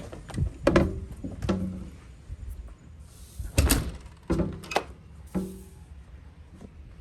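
A door being unlocked and opened to go outside: a run of clunks and clicks from the latch and frame, with two short swishes about three and five and a half seconds in.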